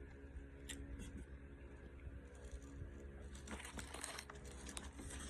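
Someone eating a sub sandwich: faint crackles of the paper wrapper being handled and chewing, with a cluster of crinkling about three and a half seconds in, over a steady low hum.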